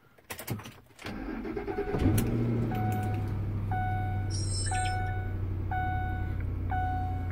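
Car engine cold-starting: it cranks for about a second, catches, and settles into a steady idle. A dashboard warning chime sounds about once a second over the idle.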